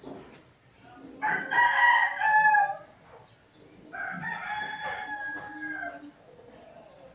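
A rooster crowing twice, each crow a drawn-out call of a second or two, the first much louder than the second.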